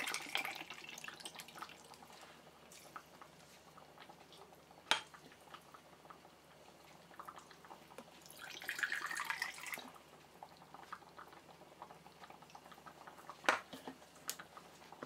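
Apple vinegar poured from a tea glass into glass jars of peppers, in two short pours: one near the start and one about 8 to 10 seconds in. Two sharp glass clinks come in between, about 5 and 13.5 seconds in.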